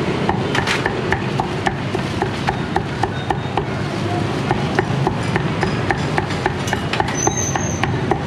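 A cleaver chopping on a wooden block in a quick, even run of sharp knocks, about three a second, over steady background noise.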